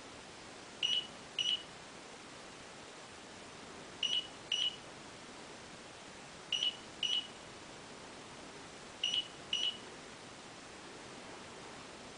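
Sony LH71 digital readout's keypad beeper giving short, high electronic beeps in pairs, four pairs about two and a half seconds apart, as the enter key is pressed to step through the stored segmented error compensation points.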